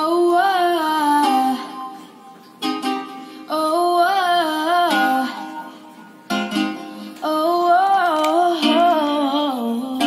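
Music played through a boAt Stone Grenade portable Bluetooth speaker: a melody in three phrases, each starting loud and fading.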